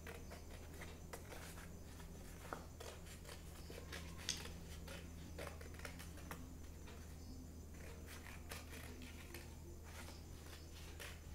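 Small scissors snipping through paper, a run of faint snips and paper rustles, two of them a little louder about two and a half and four seconds in.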